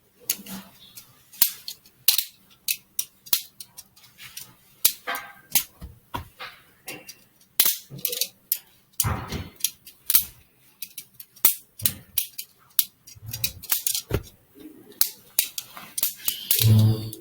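Homemade Lego balisong being handled: many sharp, irregular plastic clicks and clacks from its brick-built handles.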